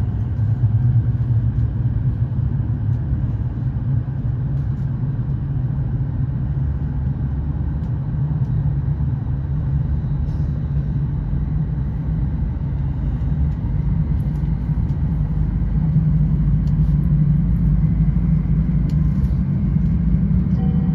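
Steady low rumble of a passenger train running at speed on an elevated viaduct, heard from inside the passenger car; it grows a little louder in the last few seconds.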